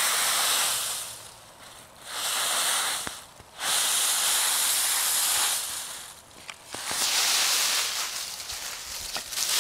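Dry autumn leaves rustling and crunching as a small dog burrows and jumps through a leaf pile, in about four bursts with short pauses between.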